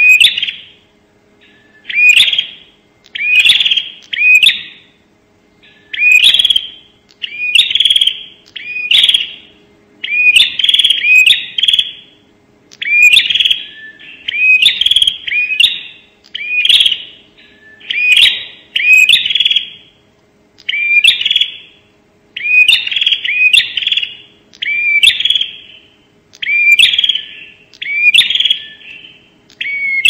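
Prenjak calling: loud, sharp chirping phrases of two or three quick notes, repeated about once a second without a break. This is the rapid 'nembak' calling used as a lure for other prenjak.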